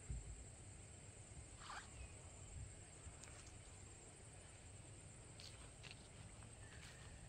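Quiet outdoor garden ambience near silence: a low steady rumble with a few faint bird calls, one falling call about two seconds in and some short chirps later.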